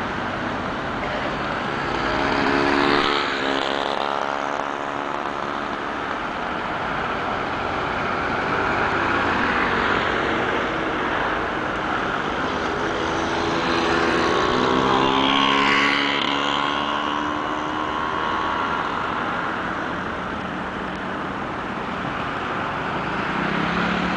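Urban road traffic: a steady bed of car and bus noise, with two vehicles passing close by, about three seconds in and again around fifteen seconds, their engine pitch sliding as each goes past.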